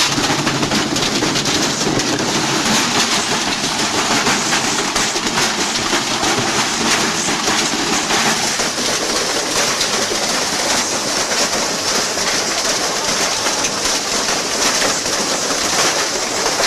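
Washing machine running, with a hard object clattering and rattling around inside the drum in a steady, dense, irregular racket.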